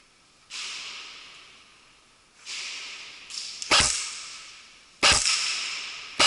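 Airsoft guns firing single shots: two softer hissing pops about half a second and two and a half seconds in, then sharp, loud cracks roughly once a second from a little past the middle, each trailing off with an echo.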